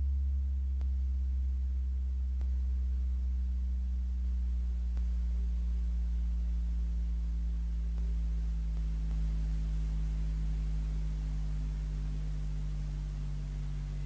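Pure sine test tone from a signal generator played through Edifier R2730DB powered bookshelf speakers, its pitch gliding slowly down through the bass range. It is a frequency sweep to check whether the speakers play the low end evenly, without dips.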